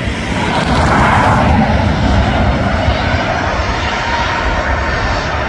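Boeing 737-800's CFM56-7B jet engines running as the airliner moves along the runway: a steady jet roar that swells louder about a second in and then holds.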